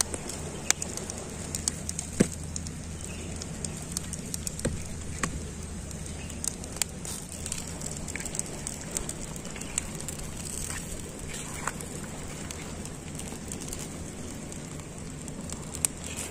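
A fire grilling patin fish, crackling with scattered sharp pops over a steady hiss.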